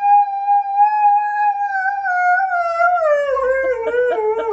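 Husky howling: one long howl held at a steady pitch, then sliding lower over its last two seconds and wavering as it breaks up near the end.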